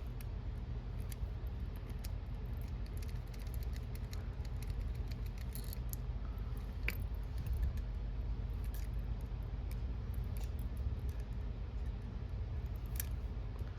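Scattered small metallic clicks and clinks from handling a padlock and hand tools, with a sharper click about halfway and another near the end, over a steady low hum.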